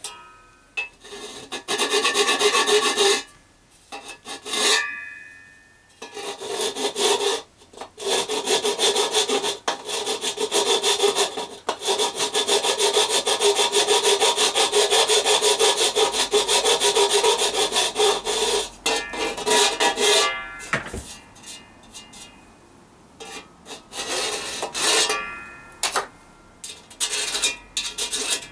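A large hand file rasping on the metal edges of an R2-D2 dome's panel openings in quick repeated strokes, taking off the small notches left where the cut-out pieces were joined. The dome rings with a steady metallic tone under the strokes. The filing comes in spells with short breaks, the longest spell in the second half.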